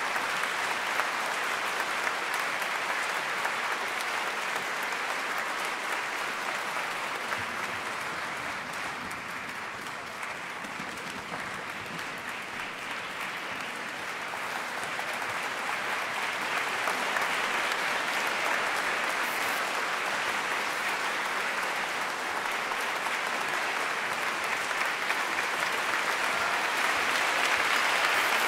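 Concert-hall audience applauding, the clapping easing off a little about ten seconds in and then swelling again toward the end.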